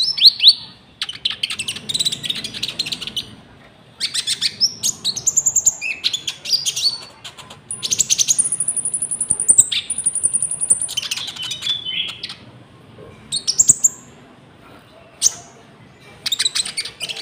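Konin songbird singing in bursts of rapid, high chattering phrases with short pauses between them. Its song is filled with cricket imitations, including a drawn-out very high note about halfway through.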